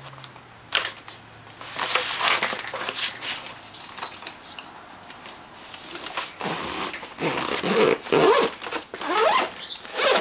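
Handling noises of packing gear away: power cords and small parts stowed, with irregular rustling and occasional knocks.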